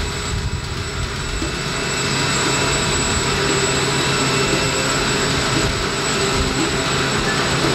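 Sikorsky Skycrane heavy-lift helicopter running on the ground with its rotors turning: a steady turbine whine over the rotor noise, growing a little louder over the first two seconds.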